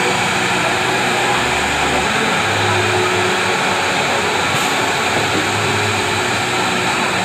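CNC milling and drilling machine for aluminium profiles running with a steady whirring hiss.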